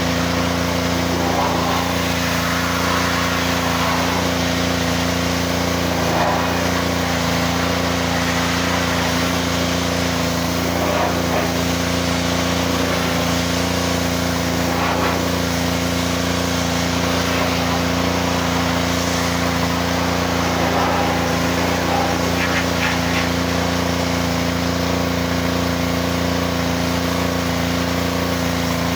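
Small gasoline pressure-washer engine running steadily, with an even hiss over it.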